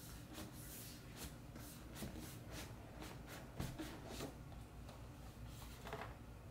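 Hands rubbing and handling a cardboard MacBook Pro box, a run of short faint rustles and scrapes, then a longer scraping slide about six seconds in as the fitted lid comes off.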